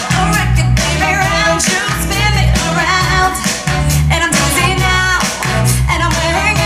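Pop-rock song with a singing voice, guitar and a steady bass-heavy beat.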